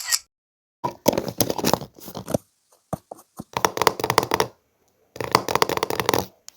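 Hands squeezing and working Gui-Gui slime, making crackling, clicking squelches in three bursts, with a few single pops in between.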